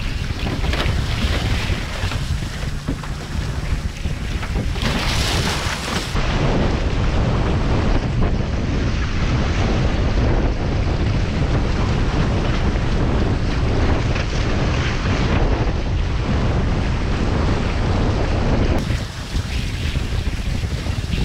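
Wind buffeting the onboard camera's microphone over the rush of water and spray from a foiling A-Class catamaran at about 22 knots. It is a dense, unbroken rushing, heaviest in the low end, that changes abruptly about six seconds in and again near the end.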